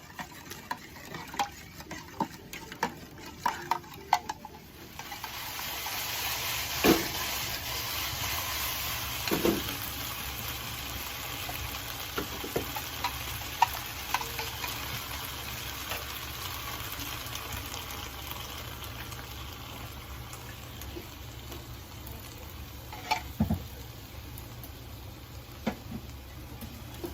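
Food frying in a hot pan. A few light clicks of utensils come first, then a steady sizzle starts suddenly about five seconds in and carries on, with occasional knocks of a utensil against the pan.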